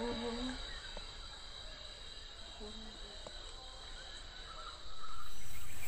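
Insects calling steadily at a high pitch, with faint distant voices now and then. Near the end a louder rush of noise comes in for about a second.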